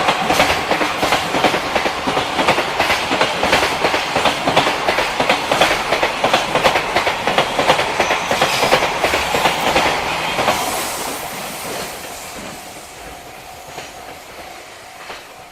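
Freight train passing close by, its wheels clicking rapidly and continuously over the rail joints. About ten seconds in the clatter thins and fades as the last wagons go by and the train draws away.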